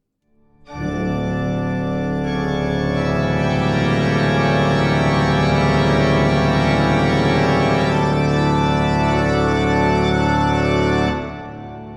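Music: a long held organ-like chord that comes in just under a second in and fades out near the end.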